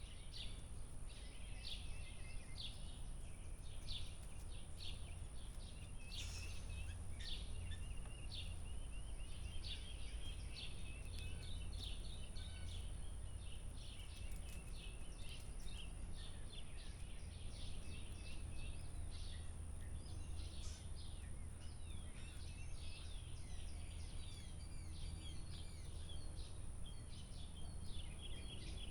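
Small birds chirping and calling, many short calls overlapping throughout, over a steady low background hum.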